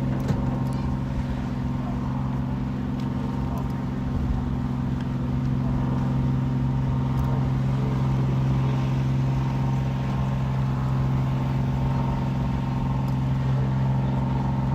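An engine running steadily with a low, even drone, growing slightly louder a few seconds in.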